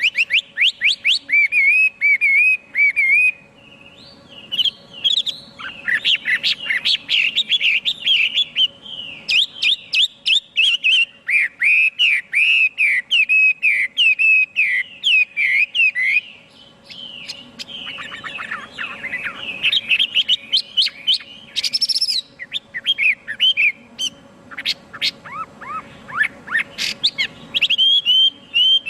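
Chinese hwamei singing a long, varied song of rapid whistled phrases and trills, with short pauses about four seconds in and about sixteen seconds in. A faint steady hum lies underneath.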